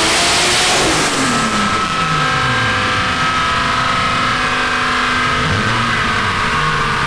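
Toyota 2JZ-GTE straight-six with a big single turbo on a chassis dyno, at the top of a full-throttle run. The revs climb through the first second, then fall away over about two seconds as the throttle closes, settling to idle with a brief dip in pitch near the end.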